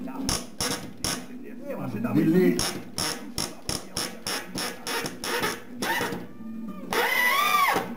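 Cordless drill-driver sinking a 7 cm self-tapping wood screw into a timber floor batten, with sharp mechanical clicks about three a second. Near the end comes a short whine that rises and falls.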